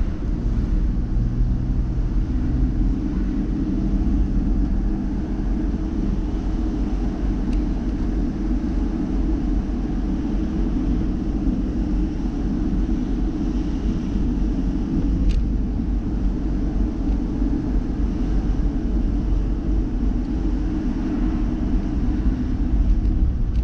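Steady low rumble of a car driving at moderate speed, engine and tyre noise heard from inside the cabin.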